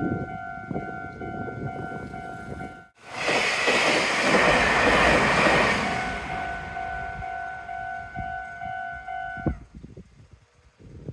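Japanese level-crossing warning bell ringing its repeated 'kan-kan' over the rumble of a Meitetsu Nagoya Main Line train passing through the crossing. About three seconds in a loud rush of the train going by takes over, then the bell rings on alone and cuts off suddenly near the end, as the crossing clears.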